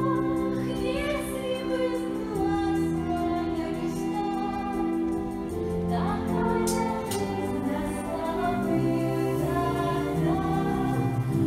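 Stage musical song: a voice singing a slow melody over an instrumental backing.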